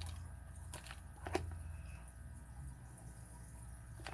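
A few light clicks and knocks from lock-picking tools being handled, the loudest about a second in, over a low steady hum.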